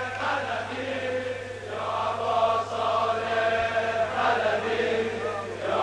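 Male voices chanting together in a softer passage of a Persian Shia lament, the pitch swelling and falling without clear words, over a steady low drone.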